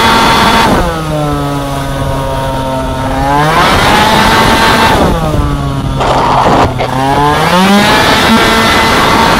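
Racing scooter's two-stroke engine at high revs, falling in pitch twice as the throttle is closed for corners and climbing back up as it is opened again.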